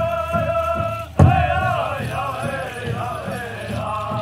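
Powwow drum group singing a grand entry song: several high, wavering voices chant over a big drum struck about two to three times a second, with one hard drum hit about a second in.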